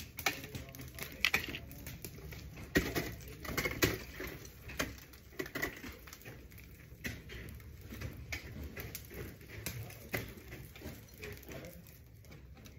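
Irregular knocks and clicks at scattered intervals, the sharpest about three and four seconds in, over faint voices.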